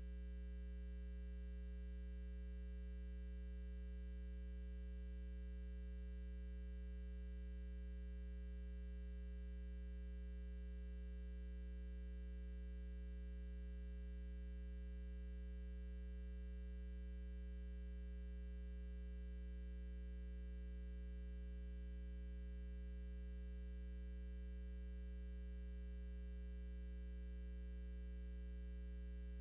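Steady electrical hum: a low, unchanging buzz over faint hiss, with no other sound.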